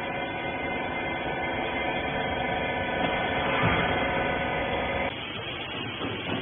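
Hydraulic bagging baler running with a steady, many-toned hum that cuts off suddenly about five seconds in.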